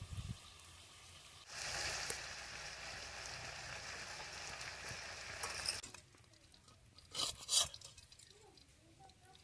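Hot oil sizzling in a cooking pan: the hiss starts suddenly, runs for about four seconds and cuts off. A couple of short clatters follow, typical of a utensil on the pan.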